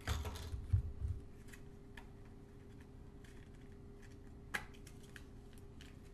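Small clear plastic putty tins being handled and opened: light plastic clicks and crinkles, with a cluster of knocks and rustles at the start and one sharp click later on.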